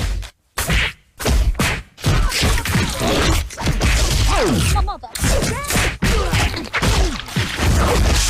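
A rapid jumble of slapstick impact sound effects: whacks, thuds and crashes. There are a few separate hits in the first two seconds, then a dense run to the end with sliding pitched sounds mixed in around the middle.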